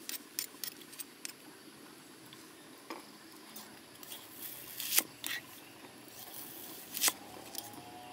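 Large kitchen knife slicing through a red onion and knocking onto a wooden stump chopping block: a quick run of light knocks at the start, then single cuts every second or two, the loudest about five seconds in.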